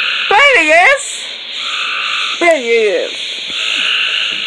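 Loud, steady night chorus of calling frogs, pulsing in overlapping bands. A wavering, voice-like call rises over it about half a second in, and a shorter falling call comes about two and a half seconds in.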